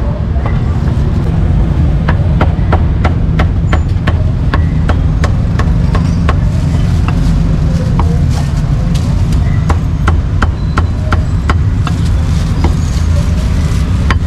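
A steel cleaver chopping meat on a round wooden chopping block, with irregular sharp chops about two to three a second. A loud, steady low rumble runs underneath.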